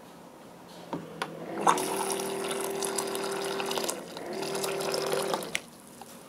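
Electric hot-water dispenser pouring water into a bowl, its pump humming with a steady tone under the splash of the stream. It pours in two spells with a short break between them, after two clicks.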